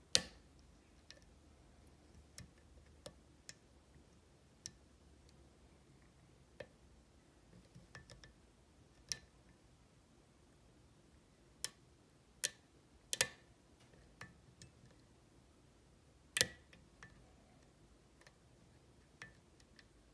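Lock picking in a Kwikset SmartKey cylinder: the metal pick and tension tool working the sliders give irregular, sharp, isolated clicks. The loudest come right at the start, in a cluster a little past halfway, and once more about three quarters through.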